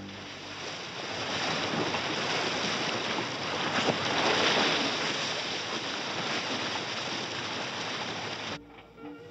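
Rushing ocean surf, a steady wash of sea noise that swells in the middle and cuts off suddenly near the end, where orchestral music comes in.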